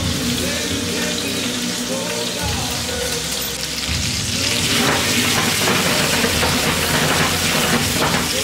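Cherry tomatoes sizzling in a stainless steel skillet. The sizzle grows louder in the second half as the pan is tossed, with background music underneath.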